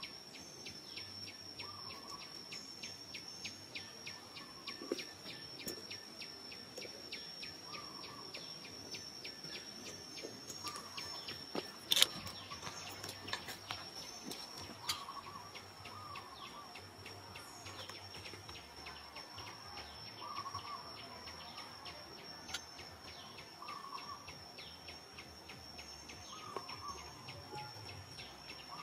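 Forest ambience dominated by insects: a steady high-pitched buzz throughout, with rapid regular ticking for the first dozen seconds. Short calls come every couple of seconds, and a single sharp click sounds about twelve seconds in.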